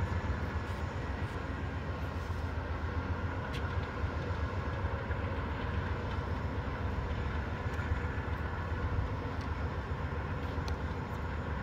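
Two Amtrak GE Genesis diesel locomotives working as the passenger train moves slowly, a steady low diesel rumble with no let-up.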